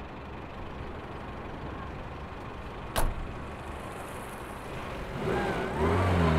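Steady low running of a GAZ-3110 Volga taxi, with a car door shutting sharply about three seconds in, the loudest sound. Music comes in near the end.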